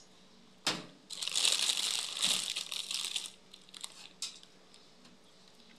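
Thin plastic wrapping crinkling as it is handled and peeled by hand: a single click, then about two seconds of dense crackling, then a couple of light clicks.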